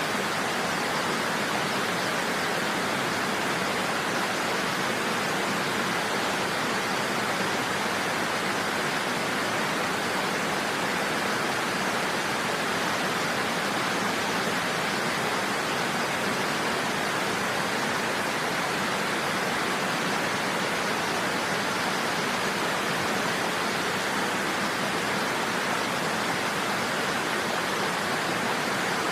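Niagara Falls: the steady, unbroken rush of a large waterfall's falling water.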